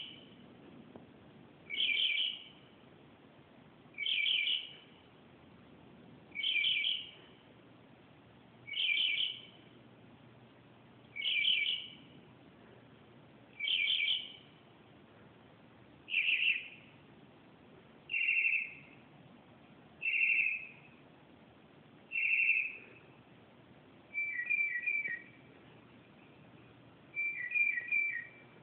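A bird calling over and over, one short call about every two seconds. Near the end the calls change to quick runs of three notes.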